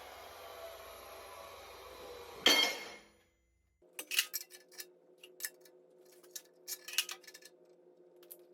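Metal clinking and tapping from pieces of steel being handled, over a steady low hum. Before that, a machine runs on and fades, and one sharp metal clank comes about two and a half seconds in.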